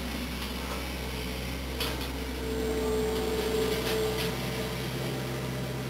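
A steady low hum with a few faint ticks, and a faint held tone for about two seconds in the middle; no gunshot.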